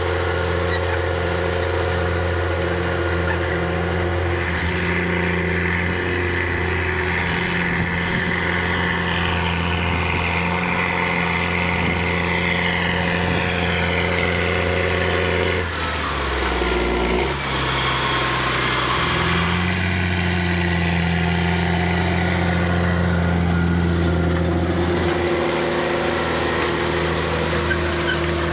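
Caterpillar Challenger MT765B rubber-tracked tractor's diesel engine running steadily under load while it pulls a disc harrow through stubble. The sound changes abruptly a little over halfway through, then settles back into the same steady running.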